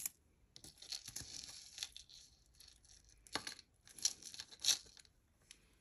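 Hands handling small jewelry pieces on a table: a soft rustle a second or so in, then a few sharp clicks as items are picked up and set down.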